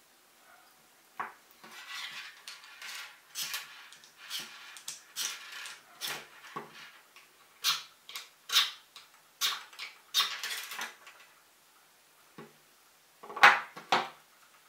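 Handheld tungsten-alloy sharpener scraped in repeated short strokes across the steel jaws of combination pliers, metal rasping on metal. After a brief pause, two louder strokes come near the end.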